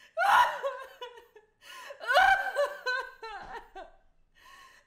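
A woman sobbing and wailing in anguish, in repeated short cries with breaths between them.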